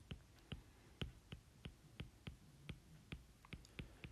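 Light, quiet clicks of a pen stylus tapping and skidding on a tablet screen while numbers are handwritten, about three a second and slightly uneven.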